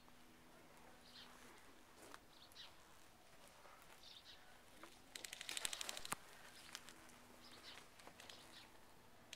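KWA MP7 gas blowback airsoft gun firing a single full-auto burst of about a second, a fast even string of sharp shots about five seconds in. Faint bird chirps sound around it.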